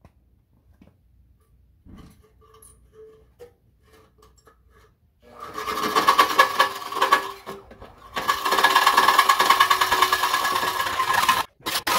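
Reciprocating saw cutting through the 1/8-inch steel of a mower deck, a loud run of rapid strokes over a steady whine. A few faint ticks come first as the blade is set in the cut. The saw starts about five seconds in, eases off briefly, then runs on and stops just before the end.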